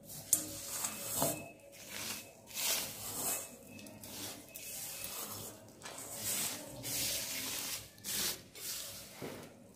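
A hand sweeping a coarse, dry powder of ground atap rice and khoi across a plastic sheet and into a steel bowl: a run of irregular gritty swishes and scrapes.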